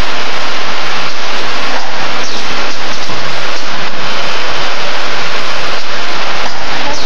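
Loud, steady rushing workshop noise with a few faint clicks, at a level that stays flat throughout.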